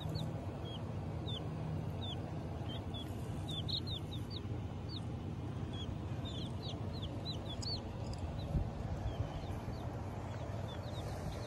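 Baby chicks peeping in a cardboard carrier box: a scattered string of short, high chirps, crowding together to several a second around the middle.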